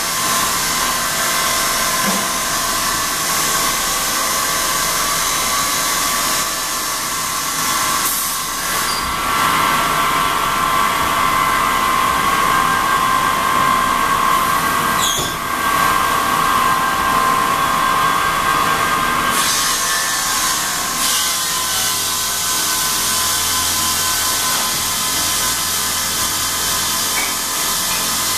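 Marble tile processing line machinery running steadily: a constant mechanical whine over a hiss. About two-thirds of the way through the hiss eases and a low hum takes over.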